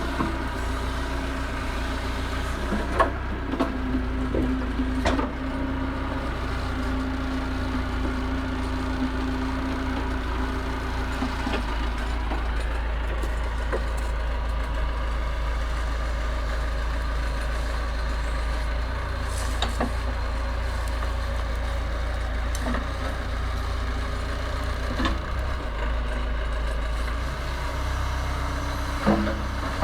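Massey Ferguson 50HX backhoe loader's diesel engine running steadily, with a held tone on top from about three seconds in to about eleven seconds, and a few sharp knocks and clanks scattered through.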